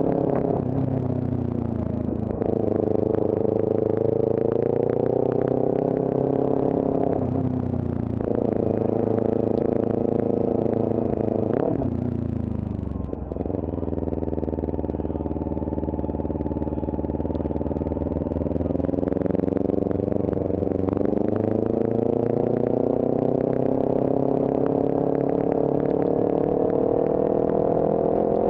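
Sport motorcycle engine under way, its pitch climbing as it accelerates and dropping at gear changes about 2, 7 and 12 seconds in. It eases off briefly just after that, then the revs rise slowly and steadily through the last third.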